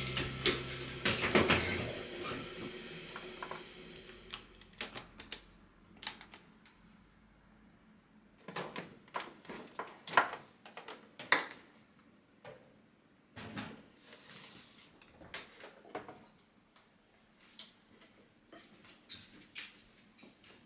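Quiet household handling sounds: a fading hiss in the first few seconds, then scattered light clicks and knocks, like cupboards, containers and dishes being handled and set down.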